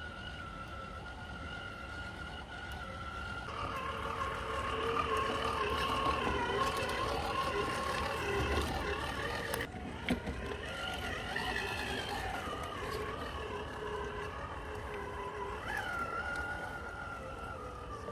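Whine of an RC crawler's Hobbywing Fusion 1800kv brushless motor and drivetrain gears as the truck crawls over rocks, its pitch shifting up and down with the throttle. A sharp knock about ten seconds in.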